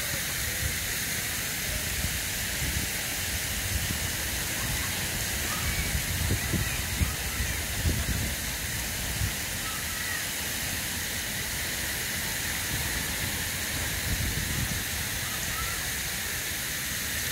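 Outdoor park ambience: a steady hiss and an uneven low rumble, with a few faint, short, high bird chirps. A handful of soft knocks come about six to eight seconds in.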